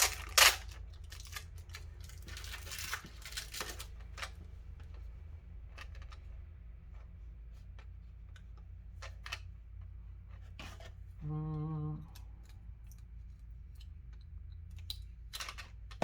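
Packaging being handled and torn open, with a loud scratchy rustle in the first few seconds, then scattered small clicks of handling. About eleven seconds in comes a short steady hum of under a second.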